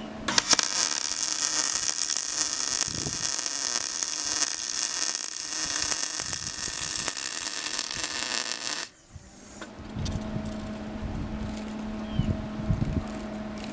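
A power tool, most likely an angle grinder, running under load for about eight and a half seconds with a high, hissing whine, then cutting off suddenly. After it stops, a steady low hum of a running engine or machine carries on underneath, with a few knocks.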